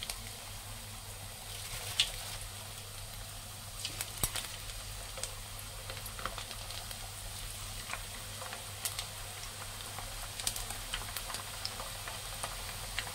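Chekka garelu (rice-flour and moong dal discs) deep-frying in hot oil in a kadai on a medium flame: a steady sizzle of bubbling oil with scattered crackles and pops.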